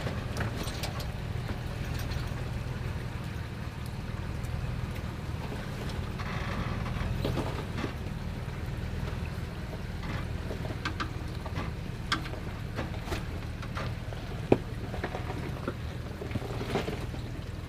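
Toyota 4Runner's engine running steadily at low revs as the truck crawls over a rock obstacle, with scattered sharp clicks and knocks throughout.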